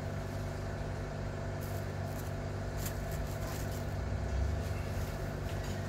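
Steady low mechanical hum holding several constant tones, with a few faint light clicks about halfway through.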